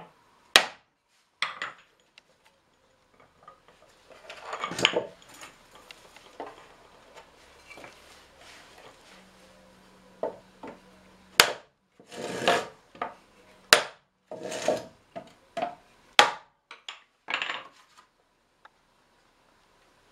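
Hammer blows on a hoop driver, knocking the hoops tight onto a small handmade cherry-wood barrel: a few sharp strikes spaced seconds apart, with softer knocks and scraping between them. The sounds die away near the end.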